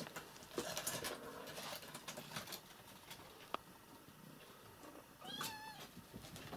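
A domestic cat gives one short meow about five seconds in, after a stretch of faint rustling and a single sharp tick.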